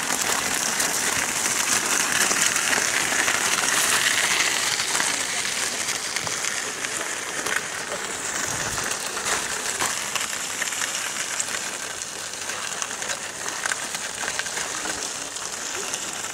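Wheelchair wheels rolling over a gravel path: a steady gritty hiss with small clicks, easing slightly after the first few seconds.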